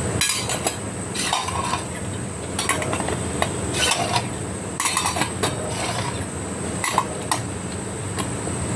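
A cooking utensil scraping and clinking against a pan in short, irregular strokes while food is stirred, over a steady low hum.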